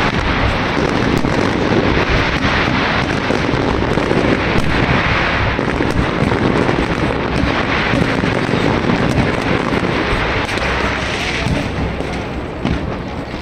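Dense barrage of fireworks going off, bangs and crackle running into one another without a break and easing slightly near the end.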